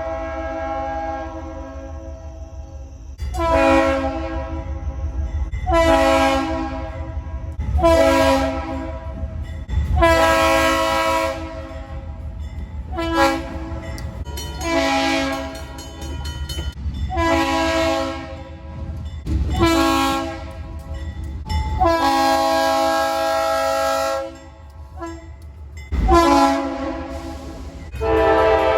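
Locomotive horn sounding about ten blasts of varying length, some short and some held, each a chord of several notes. A steady low rumble of the train runs underneath, with a sharp knock near the end.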